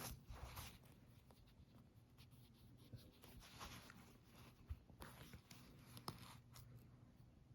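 Near silence with faint rustling and a few small sharp clicks, the sound of light handling close to the microphone.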